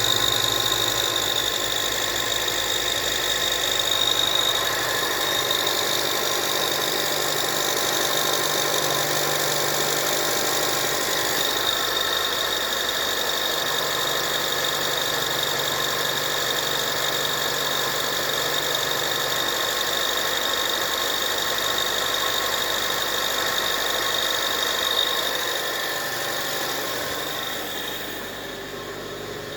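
Mitsubishi Pajero Mini turbo engine idling with a steady high-pitched squeal over it, the abnormal kyuru-kyuru noise it makes when started cold, which fades once the engine warms. The sound gets quieter near the end.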